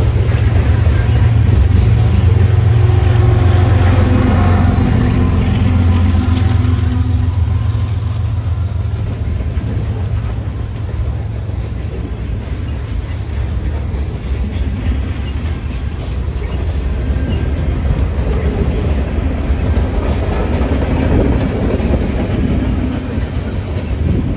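Freight cars of a mixed freight train rolling past: a steady, loud low rumble of steel wheels on the rails. Some whining tones sound over it in the first several seconds, then fade.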